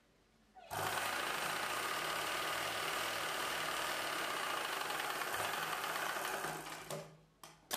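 Ralson sewing machine running steadily as it stitches a seam through the blouse fabric, starting just under a second in and winding down to a stop after about six seconds. A couple of short clicks follow near the end.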